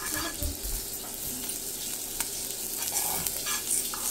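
Butter sizzling as it melts in a hot frying pan, with a fork pushing it around and scraping across the pan, the scraping strokes coming more often near the end.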